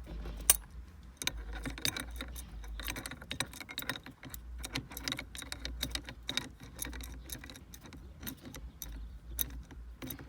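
Irregular metallic clicks and rattles as a metal nut is worked off the shift lever's threads with an adjustable wrench.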